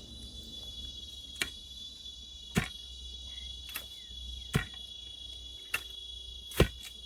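Six sharp thuds of a digging tool striking soil, about one a second, while a planting hole is dug. A steady high-pitched cricket trill runs underneath.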